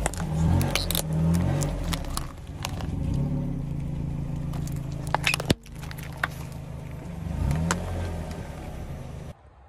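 A car's engine running and briefly revving a couple of times, with sharp cracks and crackles as objects are crushed under its tyres. The sound cuts off suddenly shortly before the end.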